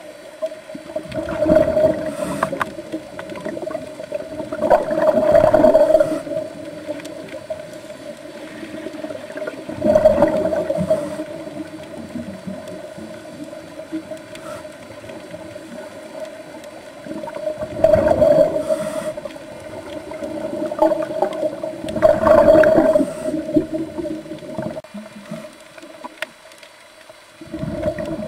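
Underwater sound of scuba breathing: a diver's regulator releasing exhaled bubbles in surges every few seconds, rumbling and gurgling, over a steady hum.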